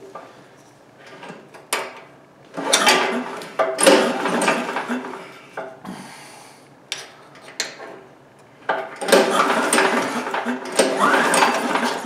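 Metal tools clattering and rattling as a socket on a long extension swaps the spark plug on a Chinese Honda-clone small engine. For the last three seconds or so the engine is cranked by its recoil starter to show spark at the plug.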